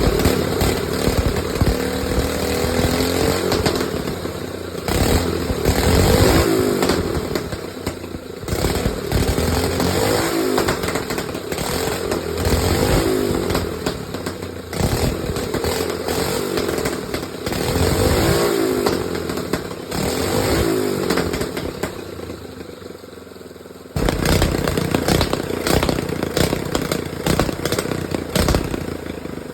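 Small go-kart engine running and revving up and down over and over. It sags lower about three-quarters of the way through, then comes back loud suddenly.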